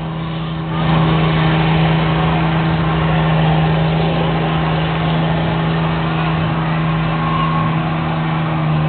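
Pickup truck's engine held at high revs in a mud pit, a loud steady engine note with a rushing noise of spinning tyres and mud that gets louder about a second in.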